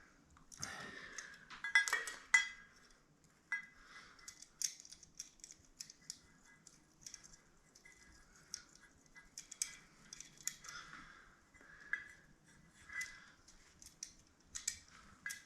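Irregular small metallic clicks and scrapes from hand tools and fittings being worked while tightening the wiring connections on a circulator pump, loudest about two seconds in.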